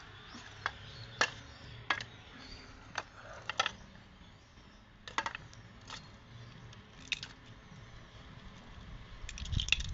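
A hammer striking cooked sea snail shells, a string of about a dozen sharp knocks and cracks at irregular intervals, with a quick cluster near the end, breaking the shells open to get at the meat.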